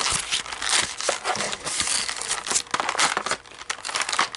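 Packaging crinkling and rustling as a toy is unboxed by hand, with many small crackles that ease off briefly near the end.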